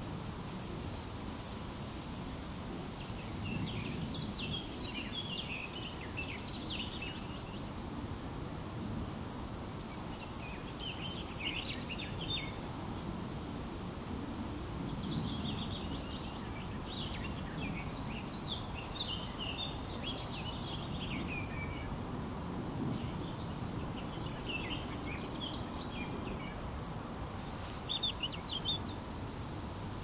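Insects chirring with a steady high-pitched trill that never lets up. Over it, songbirds sing short phrases of quick chirps, in several separate bouts.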